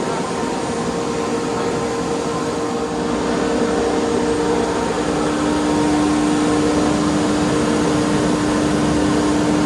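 Multicam CNC router running with its vacuum pump: a steady rushing machine noise with a high, steady whine on top, growing slightly louder a few seconds in.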